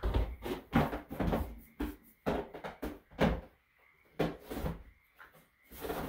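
Goat kids' hooves knocking and thumping on a hollow plastic pet carrier as they climb and jump on it, a quick irregular run of knocks and scuffs.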